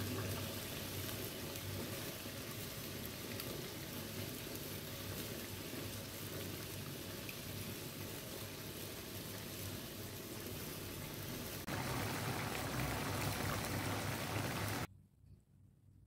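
Coconut milk with curry paste and beaten egg simmering in a frying pan on a gas burner: a steady bubbling hiss. The sound changes about twelve seconds in and cuts off abruptly near the end.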